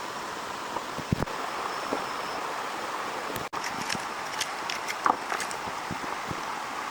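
Heavy rain falling, a steady hiss, with scattered sharp ticks and pops over it. The sound cuts out for an instant about halfway through.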